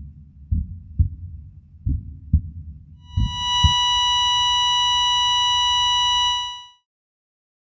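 Heartbeat sound effect, about six dull uneven thumps, giving way about three seconds in to a steady high electronic beep, the flatline tone of a heart monitor signalling death. The tone fades out shortly before the end, leaving silence.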